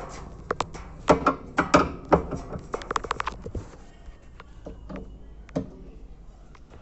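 An 8 mm wrench clicking and clinking against the bolts of an Electrolux washing machine as they are loosened: a quick run of sharp metal clicks in the first half, then scattered quieter taps.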